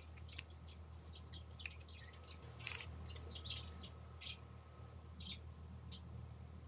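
Light, irregular clicks and ticks of small plastic and metal parts being handled while a tablet is reassembled, over a faint steady hum.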